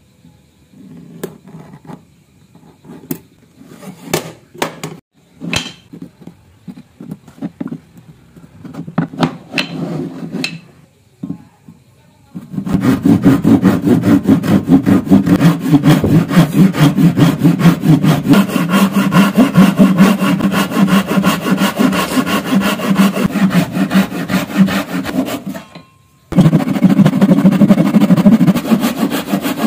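Scattered taps and scratches of marking out on a wooden block along a steel ruler, then a hand saw cutting through the wood in rapid, even strokes from a little under halfway in. The sawing breaks off for a moment near the end and starts again.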